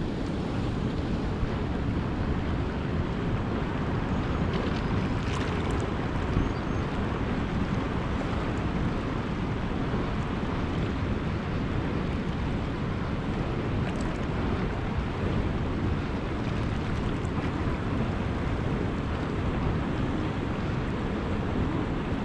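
Steady rush of churning, turbulent water, with wind buffeting the microphone.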